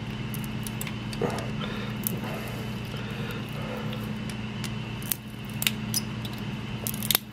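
Small clicks and snips of pliers cutting and peeling the thin silver shell of a weighted candlestick, with a sharper click near the end, over a steady low hum.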